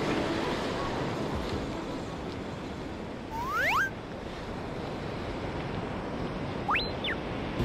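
Ocean surf washing in and breaking on a sandy beach, a steady rushing wash with some wind. About halfway through come two quick rising whistle-like tones, and near the end a single tone that shoots up and drops back.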